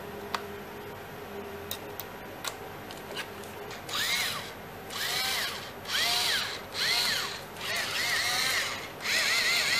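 Small cordless screwdriver motor, running on a 3.7 V lithium-ion laptop cell in place of its original 2.4 V pack. It is triggered about six times in short bursts, and the whine rises and falls in pitch each time. Before that come a few light clicks as the bit is fitted into the chuck.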